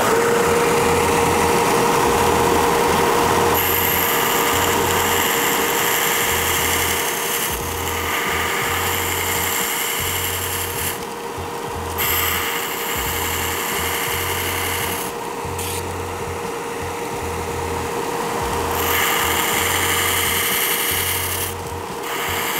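Belt sander running with a steady hum while a small aluminum blow-off valve flange is pressed against the belt in several passes, the rasp of sanding starting and stopping every few seconds. The corners are being taken down a little for a tighter fit against the pipe.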